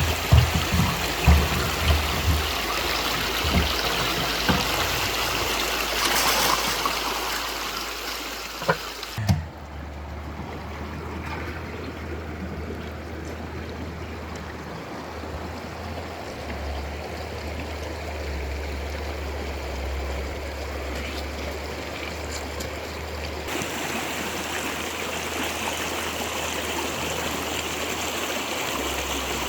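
Steady rushing of flowing water, with a few low knocks in the first few seconds. The sound changes abruptly about nine seconds in and again about twenty-three seconds in.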